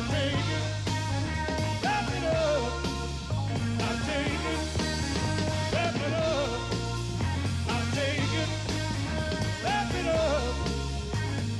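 Rock music with a steady, repeating bass line and a singing voice.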